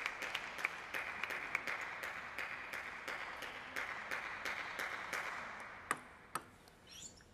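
Spectators applauding in a hall, the clapping dying away over about six seconds. Two sharp taps follow, about half a second apart, near the end.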